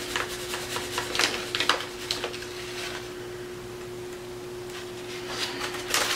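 Crumpled kraft paper packaging crinkling and rustling as it is handled, in a run of crackles over the first two seconds and again near the end. A steady faint hum runs underneath.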